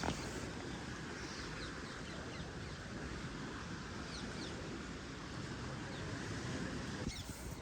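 Small birds chirping in short, quick downward-sliding notes, a few at a time, over a steady rushing outdoor background.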